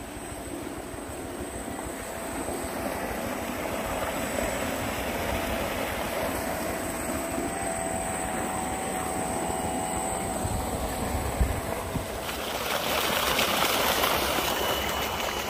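A tubewell pump running with a steady hum and a faint high whine. From about twelve seconds in, water gushing from the delivery pipe into a tank grows loud. There is a single brief knock shortly before the water gets loud.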